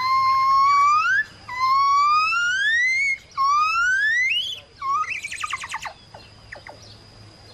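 An animal call in whistled notes: three long notes that each glide upward in pitch, the later ones shorter and steeper, then a quick run of short falling notes that fades away, over a steady faint high tone.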